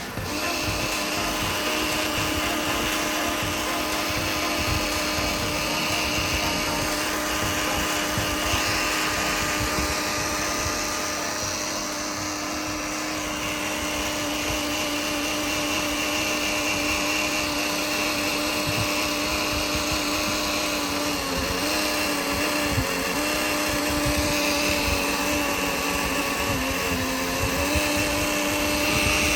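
Bosch auxiliary electric water pump on a 2013 Mercedes C250 running with a steady electric hum whose pitch wavers and dips a few times in the second half, the uneven noise traced to the pump.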